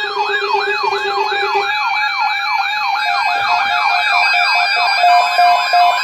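Electronic alert siren making a fast, repeating rising yelp, about two to three sweeps a second, over steady tones. About five seconds in, a pulsing beep joins it at about two pulses a second.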